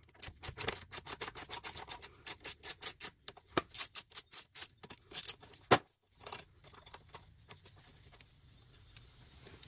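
Socket ratchet clicking rapidly, about seven or eight clicks a second, as a small bolt is backed out of a lawnmower engine, with one louder knock a little over halfway through.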